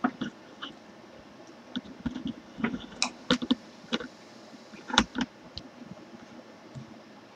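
A puppy gnawing on a hard red rubber chew toy: scattered sharp clicks and knocks of teeth on rubber, bunched about three seconds in, with the loudest about five seconds in.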